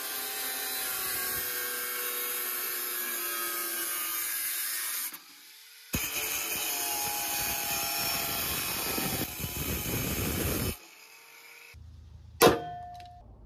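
Hitachi angle grinder cutting holes through the sheet steel of a .50 caliber ammo box: a steady, high-pitched grinding with a whine that dips slightly under load. It stops briefly about five seconds in, cuts again, and stops near eleven seconds. A single short, loud knock follows about a second later.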